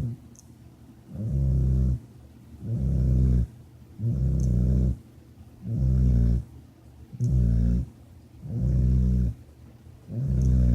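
Loud, low-pitched snoring in a steady rhythm, about seven snores in ten seconds, each lasting around a second with short pauses between breaths.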